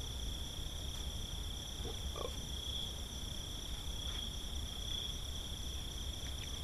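Night insects, crickets, trilling steadily in several continuous high tones over a low steady rumble.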